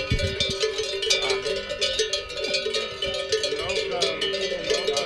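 Cowbells on a herd of walking cattle: many bells clanging at once, irregular and overlapping, their tones ringing on between strokes.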